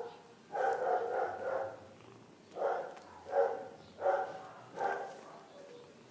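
An animal calling repeatedly with pitched, voice-like calls: one longer call followed by four short ones in quick succession.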